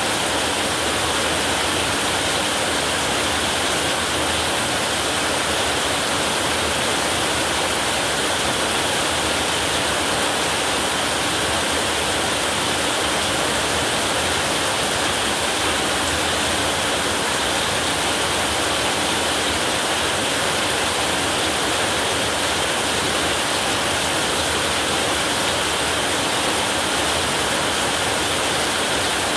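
Heavy rain falling on a roof, a dense steady hiss that keeps the same level throughout, with no thunder.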